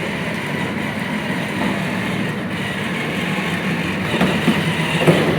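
Battery-powered ride-on toy car driving: its electric drive motors and gearboxes running steadily while the plastic wheels roll over the floor.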